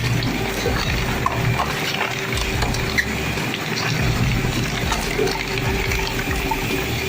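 Industrial shredder crunching and ripping through HDPE plastic containers: a steady machine hum under a pulsing low rumble and a dense run of small cracks and snaps.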